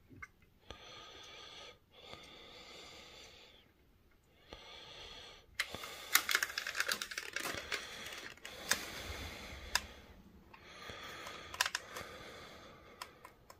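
Runs of quick, sharp small clicks and taps, like handling noise, over a faint hiss. The hiss is broken by short silent gaps in the first few seconds, and the clicks come about five seconds in and again near the end.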